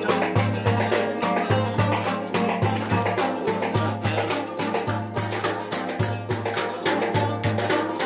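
Metal-bowled twelve-string banjo strummed fast in a lively folk dance tune, over a steady, regular drum beat.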